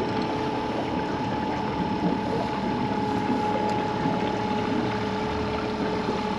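Fishing boat under way on outboard power, the motor running at a steady pitch with a constant whine over the noise of the hull and water.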